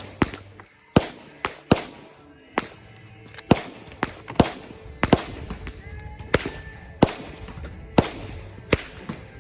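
Gunshots from several firearms at a shooting range, among them a 12-gauge pump shotgun: about fourteen sharp reports at irregular intervals, a few much louder than the rest, each followed by a short echo.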